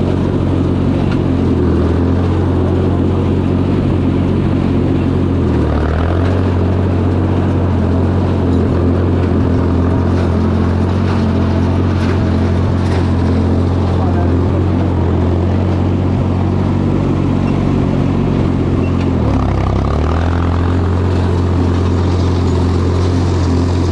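Ford 4000 tractor engine running steadily while it pulls and drives a New Holland 273 hay baler. Twice, about five and a half seconds in and again near twenty seconds, the engine pitch dips briefly and recovers, as the engine is loaded.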